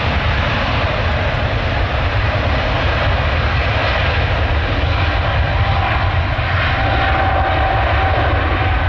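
Boeing 777's twin GE90 turbofans at takeoff thrust during the takeoff roll: a loud, steady jet roar, with a faint steady whine coming in about halfway through.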